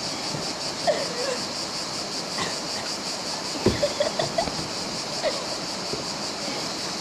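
Small river rapid rushing steadily with a high hiss of moving water, faint distant voices over it, and one dull knock a little past halfway.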